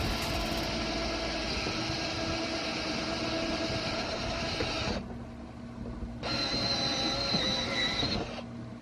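Electric drill boring a hole through a car's trunk lid, running steadily for about five seconds, stopping briefly, then running again for about two seconds with a higher whine.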